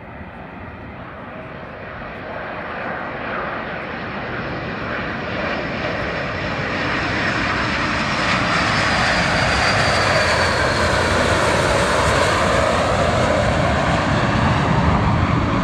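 Blue Angels F/A-18 Hornet jets flying past low in delta formation, their engines a loud jet roar that grows louder over the first several seconds as the formation approaches, then holds loud as it passes overhead.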